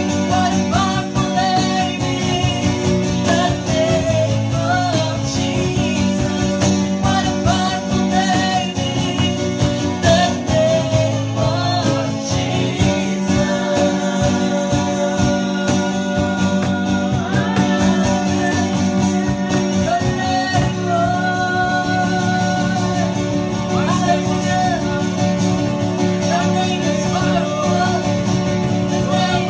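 Live worship song: a woman singing lead into a microphone over an acoustic guitar, with a man's voice singing along.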